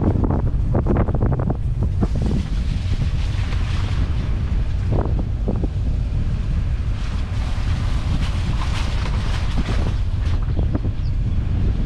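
Wind buffeting the microphone of a moving car over a steady low road rumble, with tyre hiss from the wet lane surface swelling twice. A few short crackles and taps come near the start, about five seconds in and near the end.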